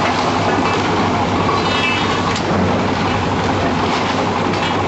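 Heavy construction machinery's engine running steadily, a continuous loud mechanical drone with a low hum.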